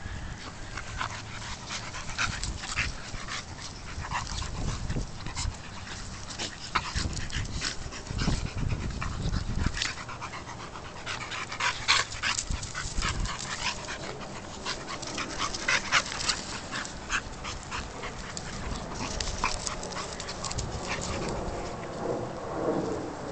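Two dogs, a blue-nose American Staffordshire terrier and a pit bull puppy, play-fighting: panting and scuffling with many short, sharp clicks and snaps.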